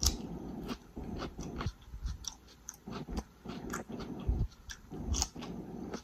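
Close-miked chewing of a loaded footlong grinder sandwich on garlic-buttered bread, with wet, smacking mouth sounds and irregular crisp clicks.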